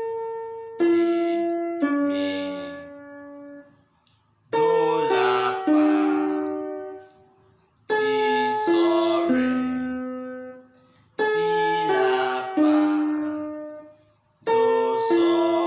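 Electronic keyboard with a piano-like sound playing the same short phrase over and over: three chords struck in quick succession and left to die away, the phrase coming round about every three seconds. It is the lead line of a simple makosa praise song.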